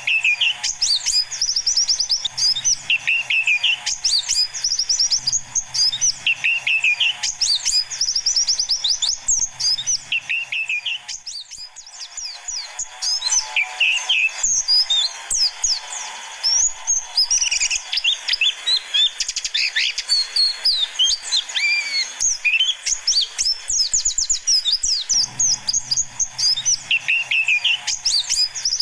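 White-eyes (pleci) singing a fast, high twittering song, with a lower falling phrase coming back every few seconds; it dips briefly about 11 to 12 seconds in. It is a lure recording of the kind used to call in wild pleci.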